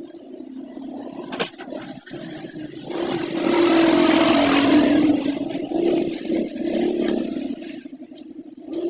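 A motor running steadily, growing much louder from about three seconds in and easing back after about five and a half seconds.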